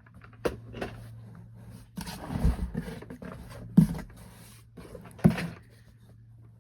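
Irregular knocks, thumps and rustling of objects being handled, the loudest thumps coming a little after two seconds, near four seconds and about five seconds in, over a steady low electrical hum.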